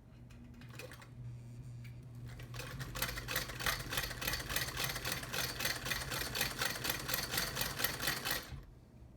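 1917 Singer Model 28 sewing machine driven by its old electric motor through a friction pulley, sewing through four layers of denim. A low motor hum comes up first, then the stitching runs as a fast, even clatter for about six seconds before stopping near the end.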